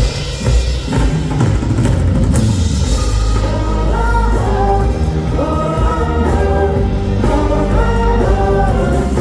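Pop song performed live at a concert, with a heavy drum and bass beat. A sung melody comes in about three seconds in.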